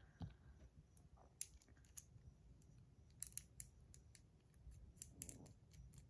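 Faint, scattered small clicks and taps of metal buttons being fitted onto a titanium fidget spinner.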